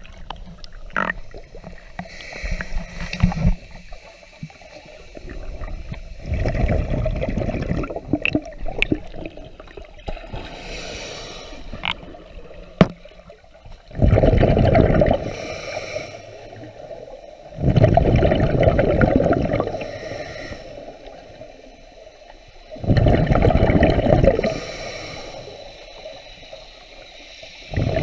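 Exhaled bubbles from a scuba diver's regulator gurgling past an underwater camera in loud bursts, four of them a few seconds apart, with quieter water churning and small clicks between.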